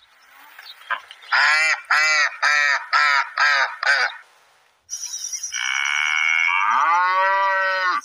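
White domestic ducks quacking: six loud quacks in a quick, even run. Then, after a brief gap, a cow gives one long moo that rises and falls in pitch.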